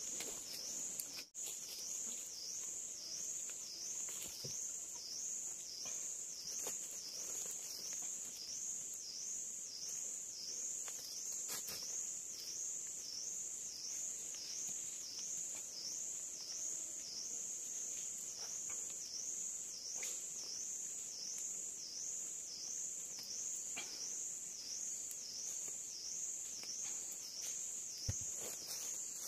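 High-pitched forest insect chorus, a continuous shrill drone that swells and fades in a steady, even pulse. Faint clicks and a small knock near the end come from handling bamboo and vine.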